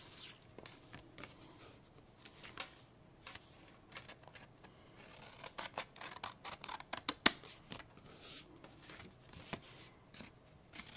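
Scissors snipping through cardstock: a run of short, irregular cuts, with one sharper snap about seven seconds in.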